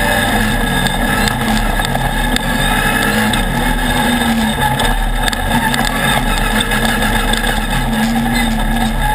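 Off-road race buggy's engine running hard at speed, heard from on board, its pitch rising and dipping several times with the throttle over rough dirt.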